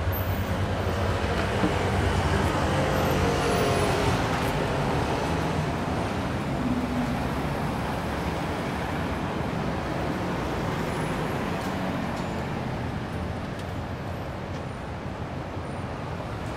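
City street traffic: motor vehicles running and passing close by, loudest in the first few seconds and then slowly fading to a steadier background rumble.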